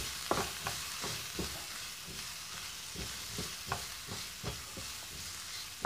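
Chopped vegetables sizzling in oil in a nonstick frying pan, with a spatula scraping and knocking on the pan at irregular moments as they are stir-fried.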